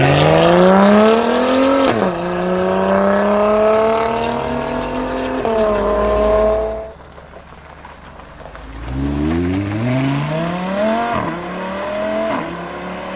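Supercar engines accelerating hard: one revs up through the gears with upshifts about 2 and 5.5 seconds in, then fades away. After a brief lull, a second car accelerates with a rising engine note and upshifts about 11 seconds in.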